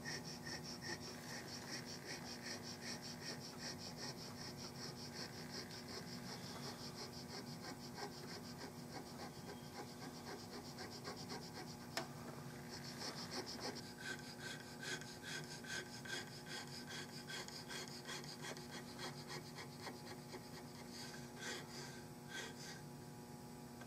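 Hand checkering tool scraping quick, even strokes into a walnut gunstock, cutting the checkering lines. About halfway through the strokes pause with a click, then resume. A faint steady hum runs underneath.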